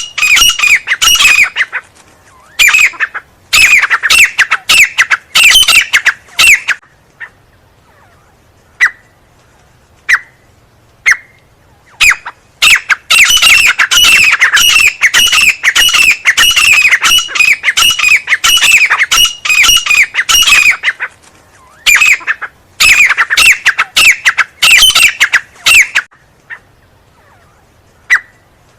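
Francolin (teetar) calling loudly: rapid runs of harsh, shrill repeated notes in bursts, with one long run through the middle and single short notes in the pauses between.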